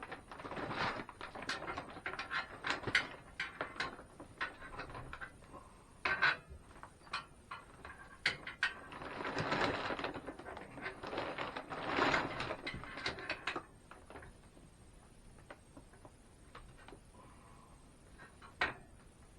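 Mounting hardware being handled and fitted: washers, lock washers and nuts clicking and scraping onto bolts, with rustling and knocking in irregular clusters. It quietens for the last few seconds.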